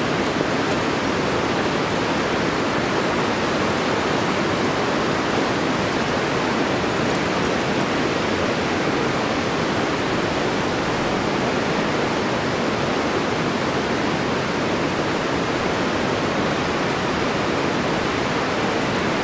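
Waterfall rushing steadily down granite cascades, an even, unbroken rush of water.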